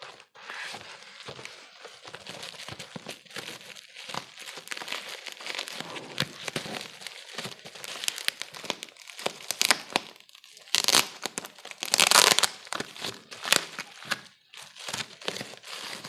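Packaging being handled and opened: irregular crinkling and crackling, with louder tearing or rustling bursts near the end.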